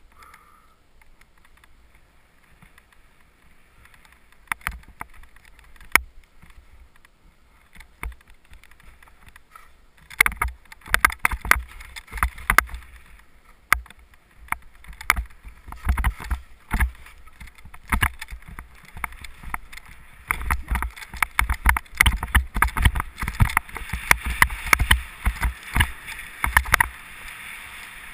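Sliding downhill on snow: the hiss and scrape of snow under the rider's skis or board. Faint at first with a few scattered knocks; from about ten seconds in it gets much louder, a dense run of sharp scrapes and rumbling bumps as the speed picks up.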